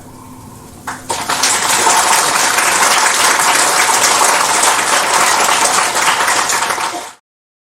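Large audience applauding, starting about a second in and cut off abruptly near the end.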